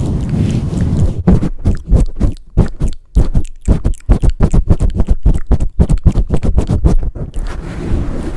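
Close-up ASMR mic pumping: fast rhythmic muffled thumps on the microphone, about four to five a second, from about a second in until near the end. Continuous rubbing and swirling over the mic is heard before the thumps start and again after they stop.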